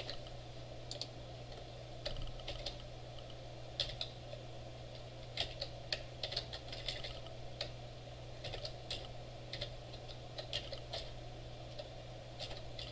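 Typing on a computer keyboard: irregular bursts of keystroke clicks with short pauses between them, over a steady low hum.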